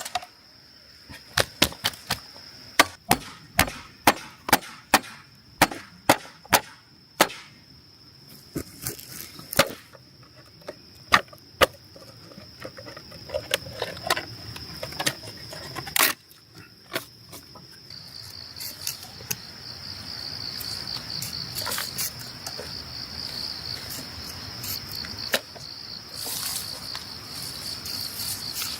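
A knife chopping with sharp, irregular strikes, one or two a second, that thin out about halfway through. Underneath, crickets keep up a steady high-pitched drone that grows louder in the second half.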